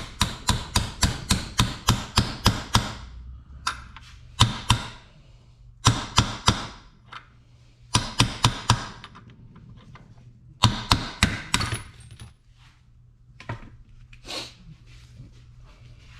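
Hammer blows during crankshaft bearing work on a Yamaha YZ250F engine: a quick run of about three to four strikes a second, then short groups of strikes with pauses between, and a few lighter knocks near the end.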